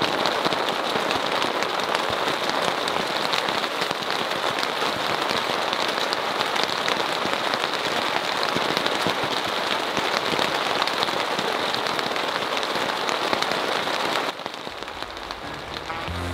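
Rain falling steadily, a dense patter of countless drops. A little past the middle of the last quarter it cuts suddenly to a quieter, lighter rain sound.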